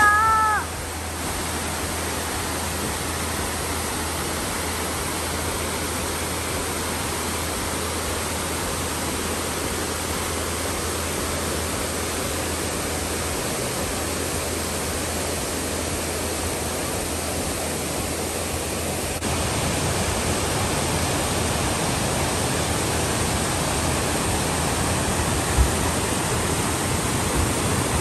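Mountain waterfall cascading over rocks: a steady, even rush of falling water. The high tail of a shout sounds at the very start, and about 19 s in the rush turns a little louder.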